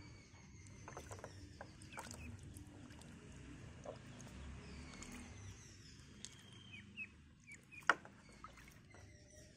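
Ducklings splashing and paddling in a plastic tub of water, with small splashes and drips, faint short high chirps, and one sharp tap about eight seconds in.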